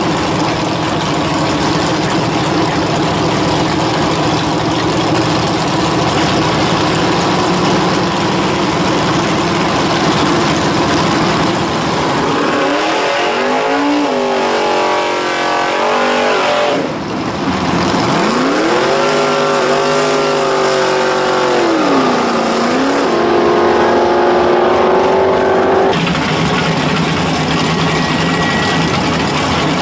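Drag-racing muscle car V8s at the starting line, loud and rough. In the middle an engine is revved, its pitch rising and falling, before the loud rough running returns.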